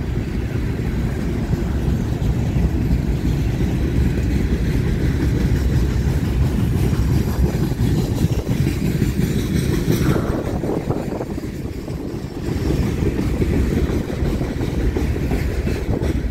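Freight train's tank cars and covered hoppers rolling past close by: a steady rumble of steel wheels on the rails, with many short wheel clicks.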